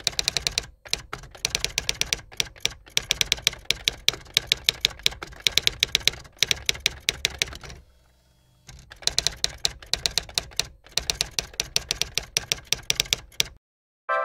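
Typewriter sound effect: quick runs of key clacks, with a short break about eight seconds in. The clacking stops shortly before the end.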